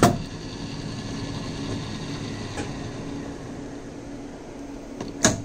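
Small lathe running with a steady hum, its spindle holding a miniature stainless steel screw. There is a sharp knock right at the start and another just before the end.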